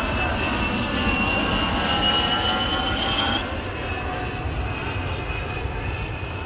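Jet airliner engines: a steady rumble with a high whine that slowly rises in pitch, then drops away suddenly about three and a half seconds in, leaving the rumble.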